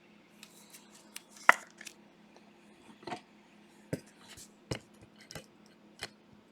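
Trading cards being handled and sorted into stacks on a table: a series of light, irregular taps and clicks as cards are set down, the loudest about one and a half seconds in.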